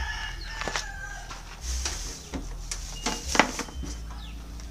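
Chickens clucking, with a few sharp knocks and clicks from a power amplifier being handled inside a wooden rack case; the loudest knocks come about three and a half seconds in.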